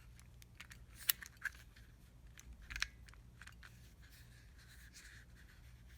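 Scattered small plastic clicks and taps from an unfuelled Bernzomatic butane soldering torch as its switches and knob are worked by hand, with sharp clicks about a second in and near three seconds in.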